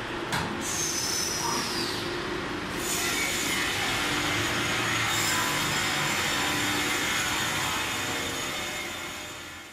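Steady noise of woodworking machinery running in a plywood factory. In the first few seconds a high squeal slides down in pitch, and the noise fades out near the end.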